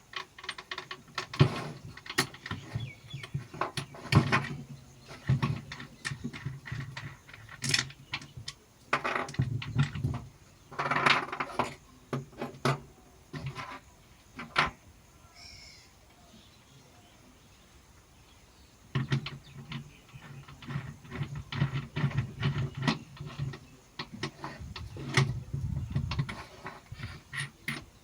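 Metal tool parts being handled and fitted: a drill chuck, converter nut and angle grinder give irregular clicks, clinks and rattles, with a quieter pause of a few seconds about halfway through.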